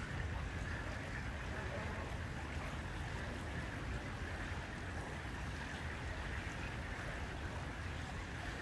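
A small canal boat under way: a steady low rumble from its motor, with water washing along the hull.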